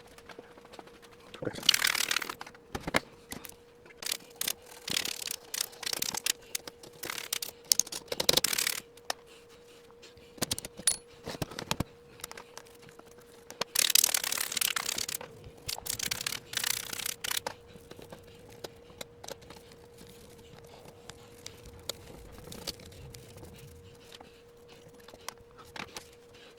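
Dust being rubbed off a typewriter's body by hand: irregular scrubbing strokes of about a second each, with scattered light clicks and knocks. A faint steady hum sits underneath.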